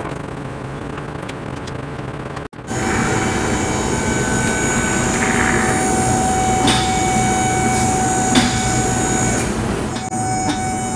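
A steady mechanical hum with a high, even whine, starting abruptly about two and a half seconds in and easing about ten seconds in. Before it there is a quieter hum with a few light clicks.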